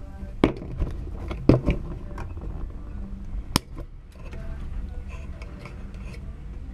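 Several sharp knocks and clicks from mounting hardware and a tool handled close by, the loudest about three and a half seconds in, over a steady low rumble.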